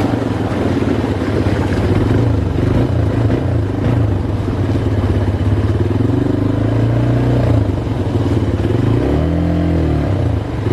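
ATV engine running while being ridden, its pitch rising and falling with the throttle, with a clattering rattle over it.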